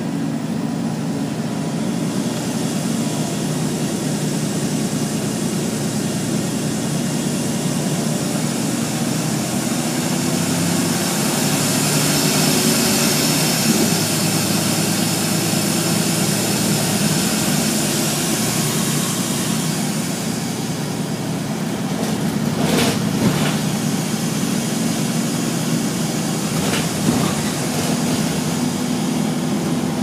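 Wright Volvo Urban Eclipse (Volvo B7RLE) single-deck bus, heard from inside at the rear: a steady engine drone with its radiator cooling fan running. A rushing whoosh swells and fades in the middle, and two sharp knocks come later on.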